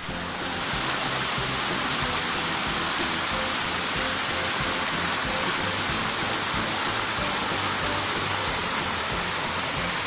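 Small mountain waterfall and stream splashing over mossy rocks: a steady rush of water that grows louder about half a second in as the falls come close. Soft background music runs underneath.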